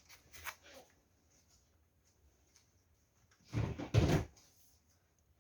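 A couple of faint clicks near the start, then a short loud clatter of knocks and handling noise, like a drawer or cupboard being opened or shut, about three and a half seconds in.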